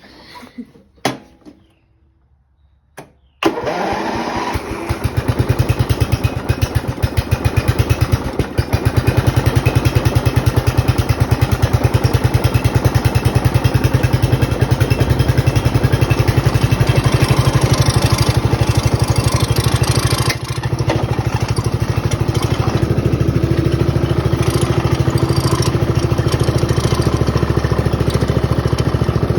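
A few light clicks, then a hot rod lawn mower's engine starts suddenly about three seconds in and runs loudly with a fast, even firing beat, dipping briefly about two-thirds of the way through.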